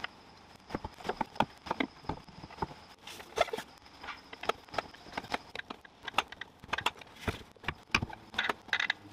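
Irregular metallic clinks and knocks of hand tools, bolts and parts as a rear differential is refitted under a car, several sharp taps a second, bunching together about three seconds in and again near the end.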